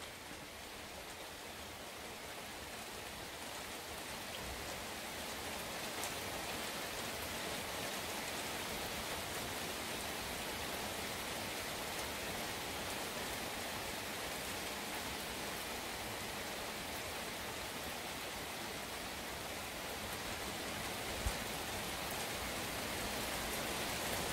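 Heavy rain falling, a steady hiss that builds over the first few seconds and then holds. There is one sharp tap a few seconds before the end.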